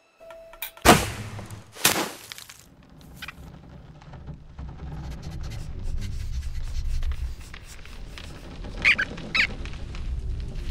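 Animated-film sound effects: two sharp knocks about one and two seconds in, then a low rumble that builds, with two short high squeaks near the end.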